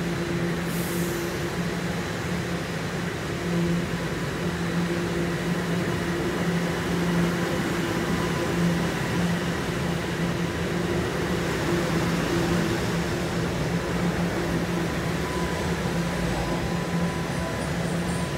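TTC Line 1 subway train pulling out of a station platform: a steady electric hum over the rumble of the train, with a short hiss about a second in.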